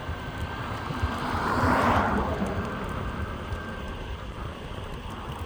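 Meepo Hurricane electric skateboard rolling on honeycomb wheels over pavement, with a steady low rumble from the wheels and wind. A car passes: its noise swells about a second in, peaks near two seconds and fades away.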